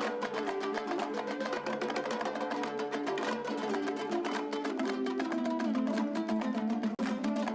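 Background music: a rapidly plucked string instrument played in quick repeated notes.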